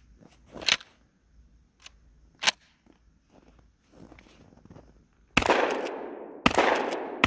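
12-gauge shotgun firing three shots about a second apart near the end, each with a long echoing tail, after two small sharp clicks earlier on.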